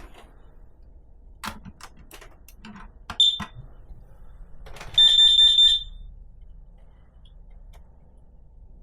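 Several knocks as a broom handle pokes at a smoke alarm's test button, a short high chirp about three seconds in, then the alarm's high-pitched beep sounding for less than a second about five seconds in and cutting off. The owner can already tell something is wrong with this unit and that it needs replacing.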